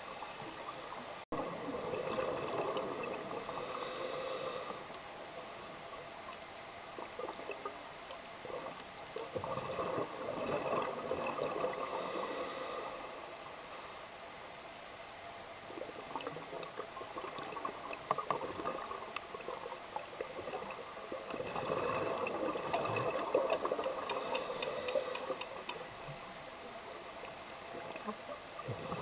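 Scuba diver breathing through a regulator underwater: three inhalations, each a short hiss, about four, twelve and twenty-four seconds in, with exhaled bubbles streaming out in the longer stretches between them.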